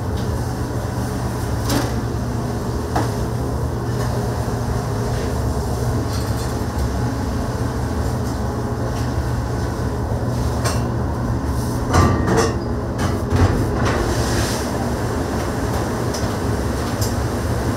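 Steady low rumble of restaurant kitchen noise, with a few sharp clinks and a short cluster of them about twelve to thirteen seconds in.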